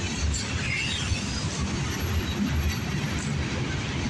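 Freight train rolling past with a steady rumble of boxcars on the rails, mixed with footsteps crunching on gravel as the recordist walks.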